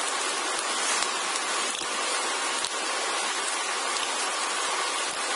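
Steady, even background hiss with no other clear sound.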